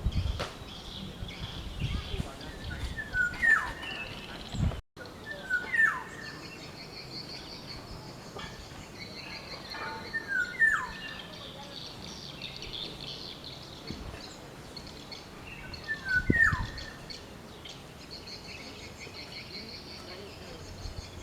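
Black-naped oriole calling: a short note or two, then a whistle sliding down in pitch, repeated four times several seconds apart, over a steady high background buzz.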